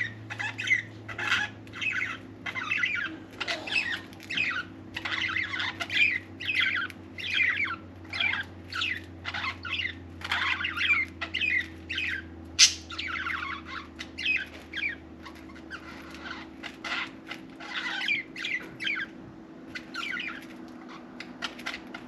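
Budgerigar chattering and warbling, a rapid, unbroken run of short chirps, with one sharp click about halfway through.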